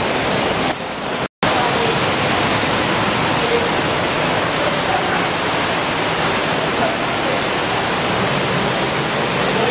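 Underground cave stream rushing over rocks and small falls, a loud, steady wash of water noise. It cuts out completely for a split second about a second and a half in.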